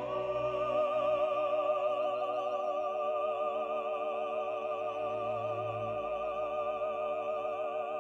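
Classical vocal music: a singer holds one long note with vibrato over sustained orchestral chords.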